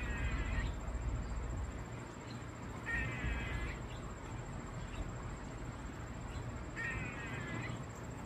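A squirrel giving a harsh, drawn-out call three times, about every three to four seconds: once at the start, once about three seconds in and once near the end.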